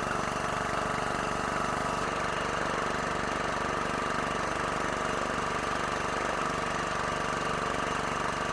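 Boat engine running steadily with an even, rapid pulsing.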